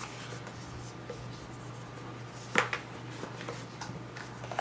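Light handling of small white paperboard product boxes, with one sharp tap about two and a half seconds in and a few faint ticks, over a steady low hum.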